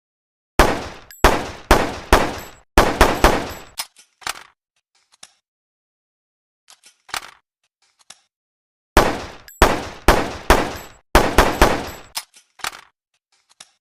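PPM-9 handgun sound effect: two strings of about seven rapid gunshots, roughly two a second, the second string about eight seconds after the first, with fainter mechanical clicks in between.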